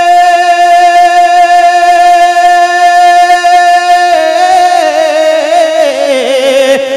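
Male naat reciter singing into a microphone: one long note held steady for about four seconds, then a wavering, ornamented run that slides down in pitch.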